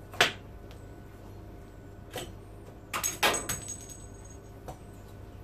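A few sharp metallic clicks and clinks as a pipe slice cutter is turned around a wet 15 mm copper pipe held in a vise. The loudest click comes about a quarter second in, and a short cluster about three seconds in ends in a brief high metallic ring.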